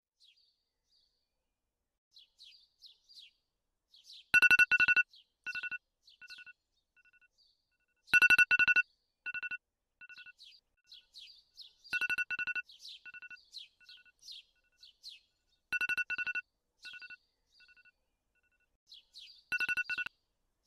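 An electronic beep, like a phone alarm, sounding five times about every four seconds. Each time it gives a loud double beep followed by quieter, fading repeats, with small birds chirping in between.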